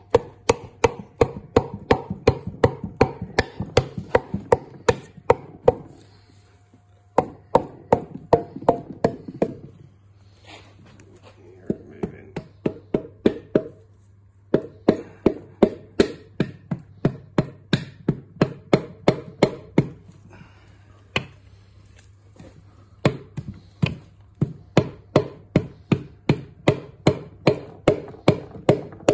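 Hammer blows knocking stuck pistons through the cylinder bores of a Rootes 1600 engine block, about three sharp strikes a second in runs with short pauses between them. The pistons are held fast by dirt and goo from the block standing outdoors for years.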